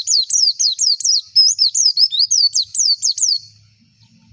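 White-eye (pleci) singing a fast, loud run of high chirps, each note sliding downward, about six a second, breaking off about three and a half seconds in.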